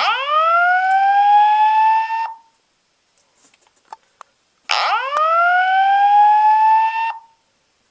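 EST Genesis G4RF-S7VM fire alarm speaker sounding a rising whoop tone twice, each sweep about two seconds long with a pause between, the alert tone of a Simplex evacuation message. It is not that loud because the speaker is run through a transformer.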